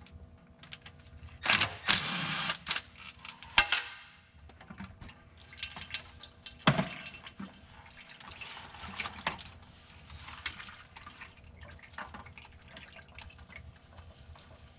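Transmission fluid dripping and splashing into a drain pan, with a louder rush of fluid about two seconds in. Scattered metallic clicks and knocks of tools and parts, the sharpest a few seconds in.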